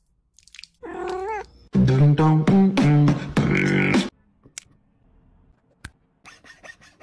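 A short, wavering cat meow, then about two seconds of a loud meowing tune with a beat, which stops about four seconds in. A few faint clicks follow near the end.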